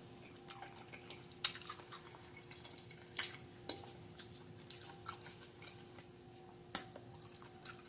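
Close-miked eating sounds from someone eating boiled seafood: faint, scattered chewing smacks and small clicks, a handful of them spread irregularly through the stretch.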